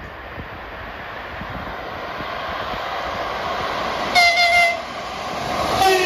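EP2K electric locomotive approaching and passing at speed, with rising rail and wheel noise. Its horn sounds twice, a sustained blast about four seconds in and a shorter one near the end that drops in pitch as the locomotive passes, sounded by the crew as a greeting.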